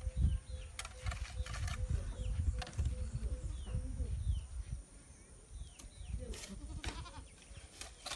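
Animal calls over a low rumble that fades out after about four and a half seconds.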